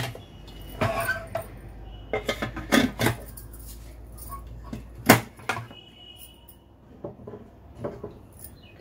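Aluminium pressure cooker lid being set on the pot and locked shut: a run of metal clanks and scrapes, the loudest a sharp knock about five seconds in.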